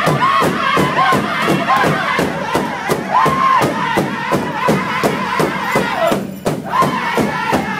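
Powwow drum group singing in unison, with high-pitched voices over a steady beat struck together on one big drum, about three beats a second. The drumming and singing break off briefly about six seconds in, then resume.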